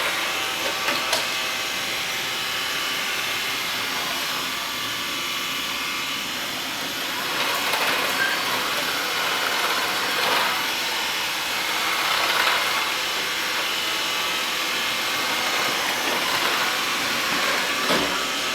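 Xiaomi Mi robot vacuum running steadily as it cleans along the edges of a room, its suction fan and brushes making a constant whir. There are a couple of light knocks, about a second in and near the end.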